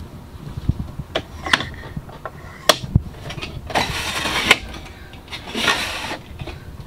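Plastic pull-out cup-holder tray in a truck dashboard being handled: a few sharp clicks, then two sliding scrapes, one about four seconds in and another about a second and a half later, as the tray is slid out and back.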